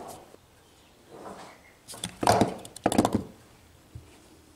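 Wooden knocks and clatter from a homemade rig of wooden boards, compression springs and a twisted-string bobbin as it is worked by hand, with a quick run of sharp knocks about two to three seconds in.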